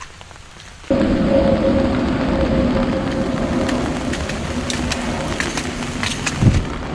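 Steady rain noise that starts abruptly about a second in and stays loud, with a low steady hum underneath and a few sharp ticks.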